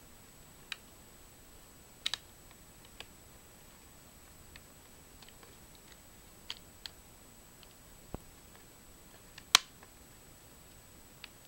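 Scattered sharp clicks and small snaps of plastic laptop parts being pressed and clipped together by hand on an Asus Eee PC 1005HA, about a dozen in all, the loudest snap about nine and a half seconds in.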